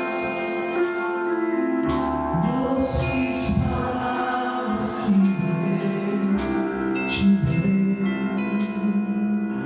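Gospel worship music: held keyboard chords with regular cymbal or drum strikes and a sung voice.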